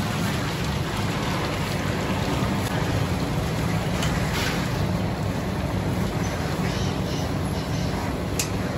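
Thick curry poured in a continuous stream from a steel can into a large steel pot of liquid, a steady splashing pour over a low, even rumble.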